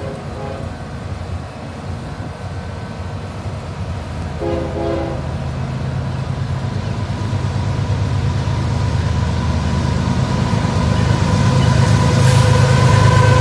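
Union Pacific freight train's diesel locomotives approaching: a low engine rumble that grows steadily louder, with a steady high whine coming in from about six seconds in. Brief horn notes sound near the start and again about four and a half seconds in.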